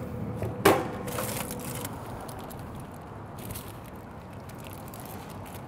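Aluminium foil crinkling with one sharp rustle a little under a second in and a few smaller crackles just after, then faint soft handling of the foil-wrapped smoked pork shoulder.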